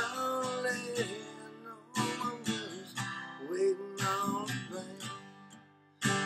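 Cutaway steel-string acoustic guitar strummed in chords, with a held wordless vocal line over it. The sound cuts out briefly near the end, then resumes.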